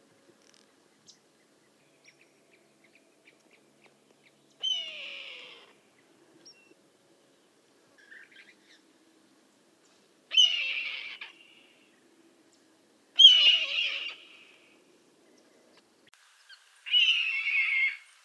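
Red-tailed hawk screaming four times, each scream about a second long and a few seconds apart, with a fainter call about eight seconds in.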